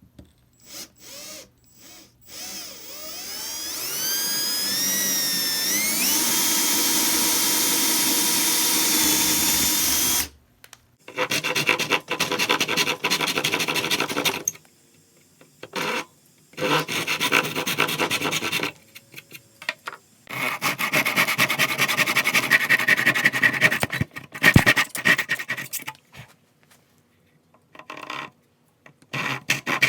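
An electric woodworking power tool spins up with a rising whine, runs steadily and then stops. After it come several bursts of rasping, rubbing strokes on wood, typical of sanding or filing.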